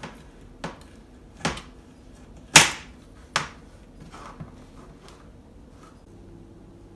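Chef's knife chopping a block of Toblerone chocolate on a plastic cutting board: about eight irregular knocks as the blade cuts through and strikes the board, the loudest about two and a half seconds in.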